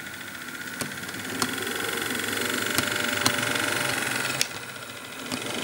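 The electric motor and gears of a DC-powered Bachmann HO-scale GP40 model locomotive whine at a steady pitch as it runs along the track. The whine grows louder as the model passes close by, then drops away about four and a half seconds in. A few sharp clicks come as the wheels cross track joints.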